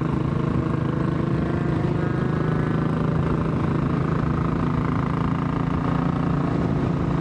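Royal Enfield Classic 500's air-cooled single-cylinder four-stroke engine running steadily under way at road speed, heard from the rider's seat.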